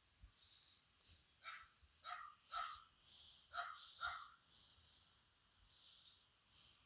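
Five faint, short animal calls, spaced about half a second to a second apart, over a steady thin high-pitched whine.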